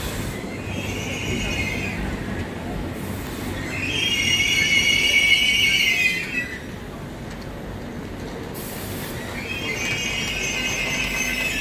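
Frecciargento high-speed train rolling slowly along the platform. Its wheels squeal high-pitched in three spells: briefly about half a second in, loudest from about four to six seconds, and again from about nine seconds on, over a low rumble.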